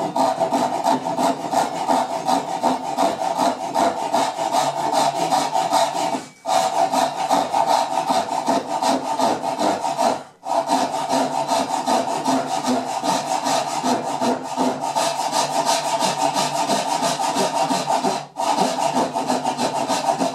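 Japanese pull saw ripping down a tenon cheek along the grain in a hand-cut mortise-and-tenon joint, with quick, even strokes that pause briefly three times.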